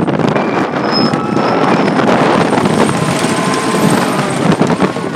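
Coney Island Cyclone wooden roller coaster train running down its first drop, its wheels roaring on the track in a loud, steady rush.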